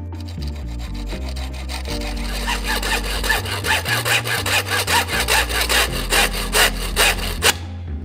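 Hand saw cutting with quick back-and-forth strokes, about two to three a second, growing louder and stopping abruptly near the end. Background music plays underneath.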